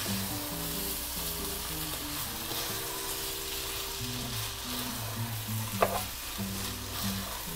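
Raw rice frying in oil with bacon, pepper, onion and garlic in a pot, sizzling steadily as it is stirred with a plastic spatula, with a faint scrape or tick now and then; the rice is being toasted in the sofrito before liquid is added.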